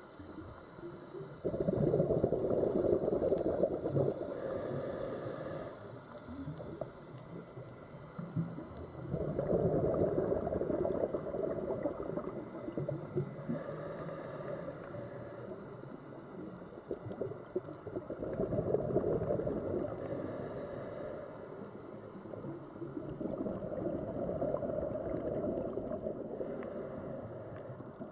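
Scuba diver breathing through a regulator underwater: four long bursts of exhaled bubbles gurgling out, with a faint whistling hiss of the regulator on each inhale between them.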